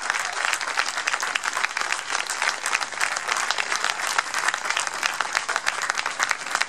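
Crowd applauding: many hands clapping in a dense, steady patter, with some clapping close by.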